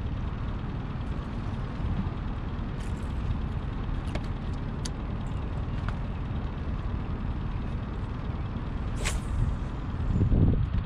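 Steady low rumble, with a few light clicks and one short, sharp swish about nine seconds in.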